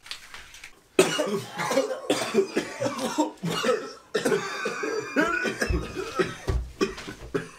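Coughing over background music, starting suddenly about a second in.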